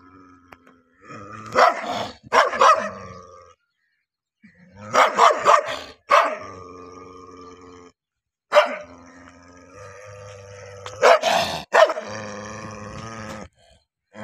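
A dog growling steadily, broken by loud barks in four short bursts: an aggressive growl-and-bark warning with teeth bared.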